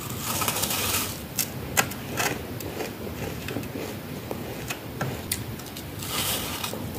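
Freezer frost being bitten and chewed: a run of crisp crunching at the start, a few sharp single cracks after it, and another burst of crunching near the end.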